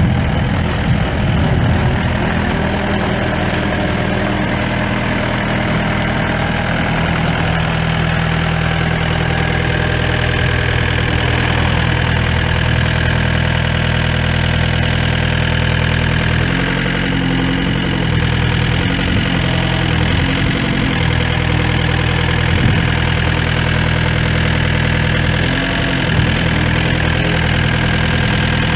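Yanmar four-cylinder diesel engine of an IHI 55N2 mini excavator running steadily at idle. Its note shifts briefly a few times in the second half, with a short hiss among the shifts.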